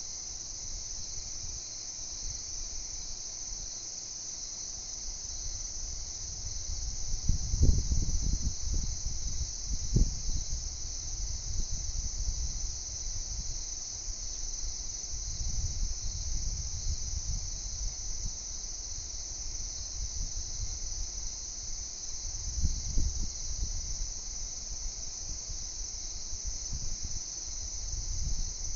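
A steady chorus of night insects, crickets, chirring without a break. A few low thumps and rumbles come over it, the loudest about eight and ten seconds in.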